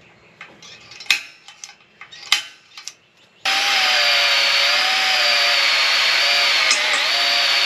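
Steel parts clank and tap a few times, then a power tool starts abruptly about three seconds in. It runs steadily with a wavering whine as it works on the steel winch bumper.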